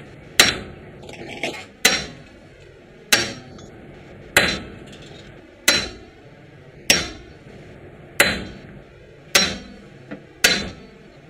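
A hammer striking a Subaru WRX axle shaft about nine times at an even pace, roughly one blow every second and a quarter, each a sharp metallic smack with a brief ring. It is driving the chamfered axle stub into the rear differential.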